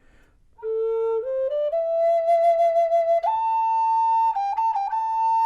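Spanish cedar Native American flute in A minor (a High Spirits Sparrow Hawk) playing a melody. It comes in about half a second in on its low note, climbs step by step, then jumps higher and adds quick grace-note flicks near the end.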